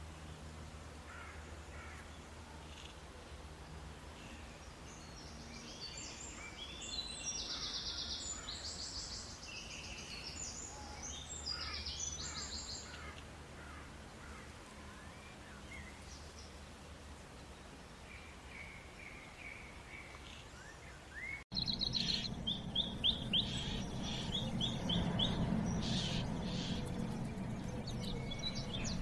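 Wild birds calling: clusters of high chirps a few seconds in, then, after an abrupt change of recording about three-quarters through, a quick run of short repeated chirps over a steady low background noise.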